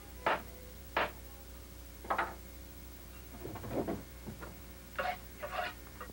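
Sharp, irregular knocks of blows struck against a wooden fence, about eight of them, a few coming in quick pairs, over a low steady hum.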